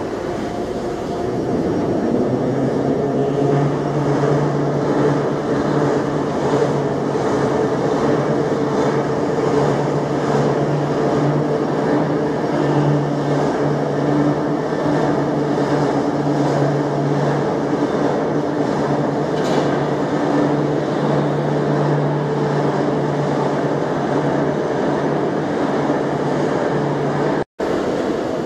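Two-stroke EMD locomotive diesel engine from a GT-26 running steadily on a test stand, a loud even engine note with a constant low hum.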